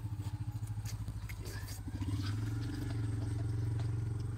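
A small engine running steadily with a fast, even pulse, louder from about two seconds in. Faint clicks of chewing are heard over it.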